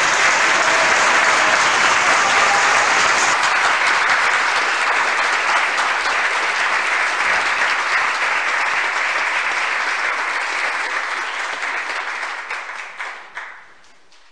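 Audience applauding, a dense steady wash of clapping that fades out near the end.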